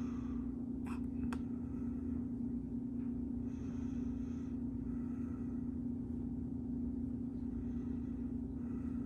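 A steady low hum of background noise, with two faint clicks about a second in.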